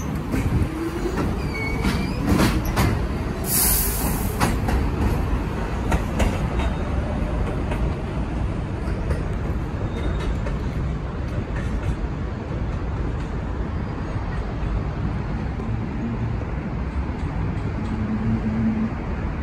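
New York City subway train running on elevated track beside the platform, with a rising motor whine and sharp clanks of wheels over rail joints in the first few seconds and a short burst of air hiss about three and a half seconds in. A steady rumble follows as another train approaches on the elevated line.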